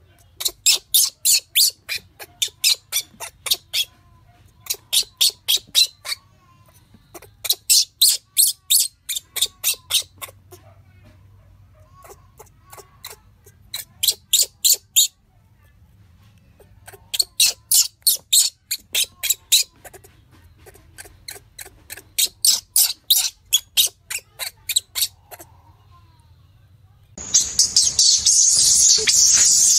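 Runs of rapid, high-pitched chirping squeaks, about six a second, in one- to two-second bursts with short pauses between. About three seconds before the end a loud, steady hiss starts.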